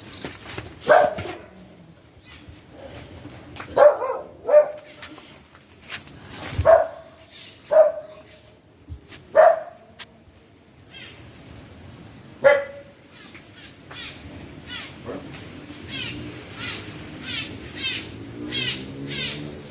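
A dog barking, about eight single sharp barks spaced irregularly over the first two-thirds, then stopping.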